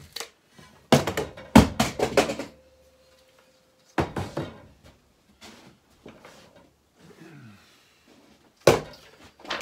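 Pieces of heavy steel flat bar being handled and set down on a work surface: a quick cluster of clanks and knocks about a second in, one leaving a short metallic ring, then a single knock around four seconds and another loud one near the end.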